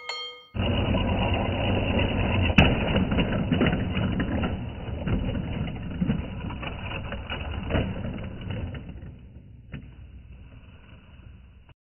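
Lego toy passenger train running on plastic track, a steady rattling clatter with a few sharp knocks, slowly fading toward the end.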